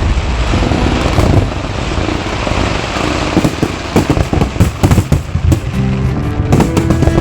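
Aerial fireworks going off: a dense crackling hiss with a rapid run of sharp bangs in the middle. Music comes in near the end.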